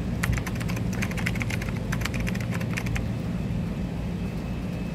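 Street ambience: a steady low traffic rumble, with a run of rapid, irregular clicks over the first three seconds.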